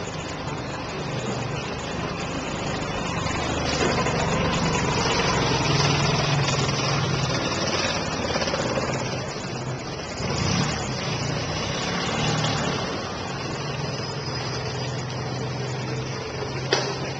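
A steady low engine hum, like a motor idling, under a broad rustling noise that grows louder through the middle. One sharp click comes near the end.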